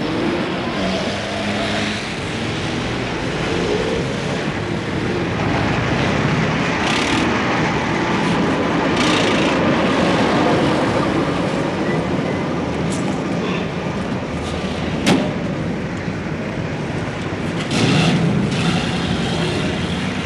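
Heavy road traffic: a steady wash of car and truck engines and tyres passing, with low engine drones rising and falling. Several short hissing surges stand out, and there is a single sharp click about fifteen seconds in.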